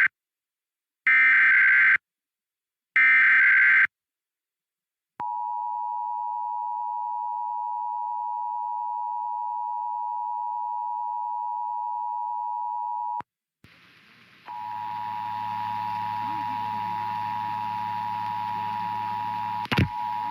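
Emergency Alert System test signalling. First come two one-second bursts of the SAME header's warbling data tones, one second apart. Then the steady two-tone EAS attention signal sounds for about eight seconds, stops, and after a short gap returns with hiss and a low hum underneath, with a click near the end.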